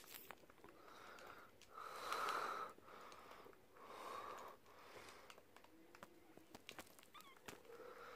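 Faint breathing close to the microphone: a run of soft, slightly wheezy breaths in and out, the loudest about two seconds in, with a few faint clicks near the end.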